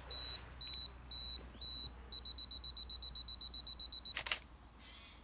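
Camera self-timer counting down: high beeps about twice a second, then a fast run of beeps for about two seconds, ending in the shutter click about four seconds in.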